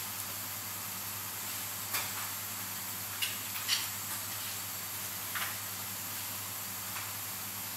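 A few light, sharp clicks of steel tweezers touching the small parts of a Seiko 7S26B automatic watch movement during reassembly, four or so spread through, the loudest about halfway, over a steady hiss and low hum of room tone.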